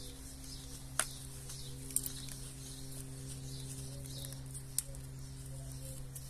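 Gloved hands digging and crumbling loose potting soil mixed with perlite around a succulent's root ball in a plastic pot. The soil gives a soft crackle, with a few sharp clicks, about one, two and nearly five seconds in. A steady low hum runs underneath.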